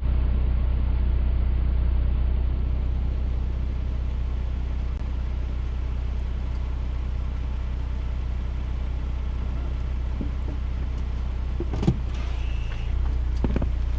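Jeep engine running steadily at low revs, a deep even hum, with a few short knocks in the last few seconds.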